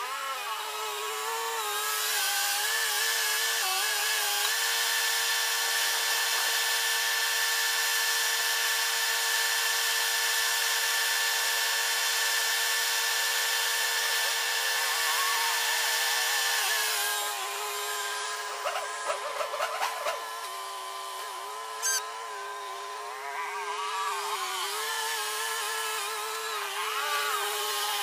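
Small quadcopter drone hovering, its propellers whining at a steady pitch that wavers and steps up and down a little. The whine has a louder hiss with it for the first half or so, and a few sharp clicks come about two-thirds of the way through.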